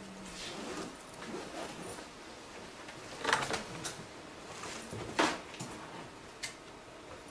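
Quiet room noise with a few sharp clicks, the loudest a little over three seconds in and another about five seconds in.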